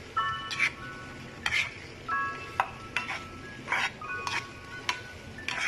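Plastic spatula stirring and scraping chicken in salted egg sauce around a non-stick frying pan, in irregular strokes roughly two a second, over a light sizzle from the pan.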